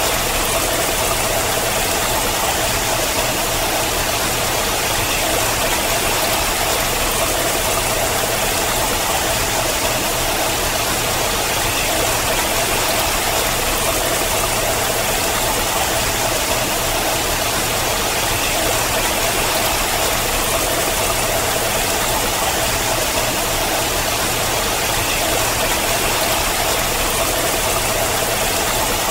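Water pouring in thin streams down a steep rock face and splashing onto stone: a steady, unchanging rush.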